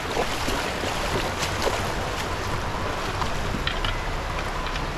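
Shallow, fast-flowing river water rushing over stones in a steady rush, with a few faint short knocks or splashes.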